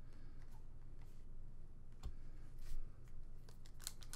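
Trading cards slid and flipped by hand, giving scattered faint clicks and rustles over a steady low hum. Near the end comes a quick run of sharper rustles as the foil wrapper of the next pack is handled.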